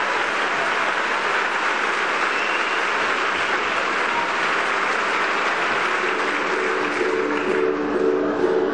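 Theatre audience applauding steadily at a curtain call. About six seconds in, the orchestra comes in with held notes under the applause.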